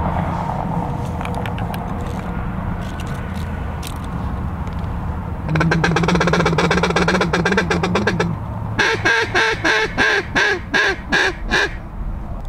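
Mallard duck call blown by a hunter: a rapid rolling feed chatter for about three seconds, then a string of about eight quacks.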